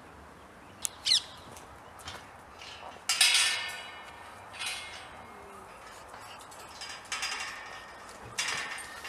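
Steel pedestrian gate clanking and rattling four times as it is worked open and swings shut, each clank ringing briefly; the loudest comes about three seconds in.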